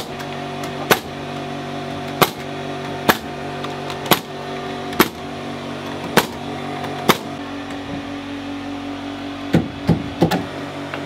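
Hammer driving nails to fasten wire lath mesh to log walls: a sharp strike about once a second, then a quick cluster of several knocks near the end, over a steady droning background of held tones.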